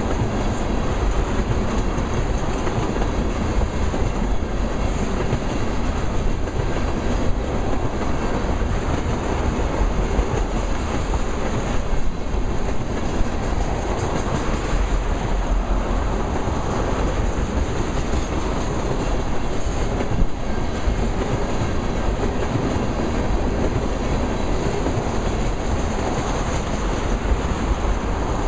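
Freight train of tank cars rolling by: a steady rumble of steel wheels on rail, with a few sharper clacks.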